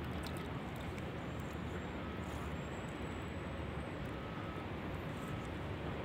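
Steady low rumble and hiss of outdoor city ambience across calm water, with no distinct events.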